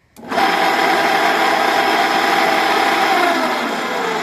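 Half-horsepower Crompton water pump motor switched on with a click, running loud and harsh, then winding down near the end with its pitch falling. The noise is the sign of worn-out motor bearings.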